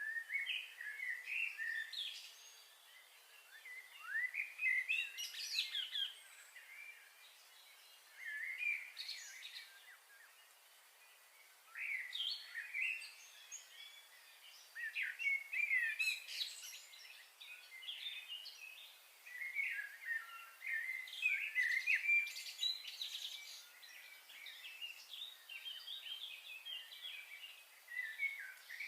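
Small birds chirping and twittering in bouts of a few seconds, with quieter gaps between.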